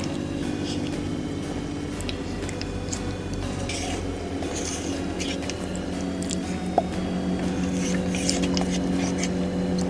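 Wooden spoon scraping and scooping soft mochi ice cream in a paper cup, with scattered small clicks and wet eating sounds. Steady background music with held notes runs underneath.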